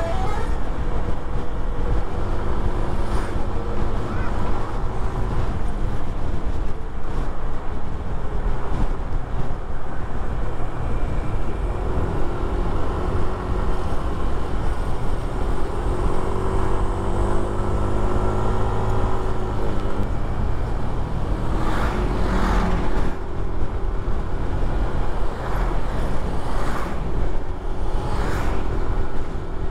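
Bus diesel engine running hard, its pitch rising and falling as the revs change. Several short hissing bursts come about two-thirds through and again near the end.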